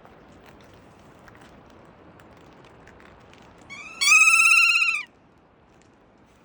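Kea parrot giving one loud, wavering call lasting about a second, about four seconds in, over faint scattered ticking.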